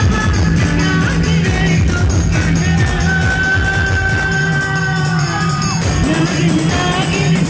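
Live band music played loud over a PA, with singing and a steady low beat; a long note is held through the middle.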